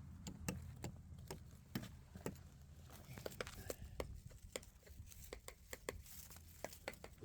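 Light, irregular tapping on exterior siding boards, a few sharp taps a second, over a low steady hum.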